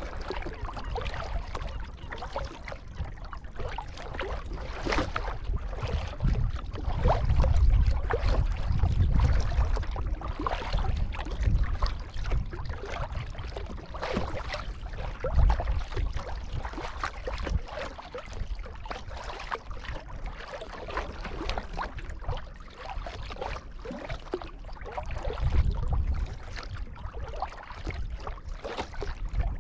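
Kayak paddle strokes dipping and splashing in the water as the boat moves along, with a few low rumbles that are loudest about seven to ten seconds in.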